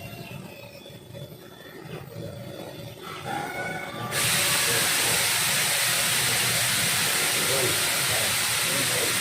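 A loud, steady hiss with no pitch starts suddenly about four seconds in and holds level, after a few seconds of faint background.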